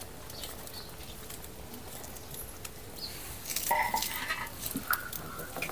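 A pot of gravy simmering at the boil. About three and a half seconds in, louder irregular splashes and clatter start as pieces of gram-flour papad are dropped into the gravy.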